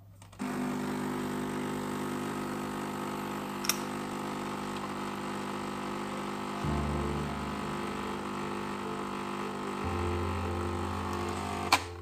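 Nescafé Dolce Gusto capsule coffee machine's pump starting about half a second in and running with a steady hum as it dispenses a frothy milky drink into a glass; the hum's low pitch shifts twice along the way. A sharp click near the end as the pump cuts off.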